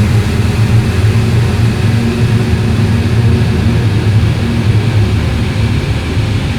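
Super-slow ambient stretch of a heavy shoegaze song: a dense, steady wall of droning sound with held low notes and a wash of hiss above.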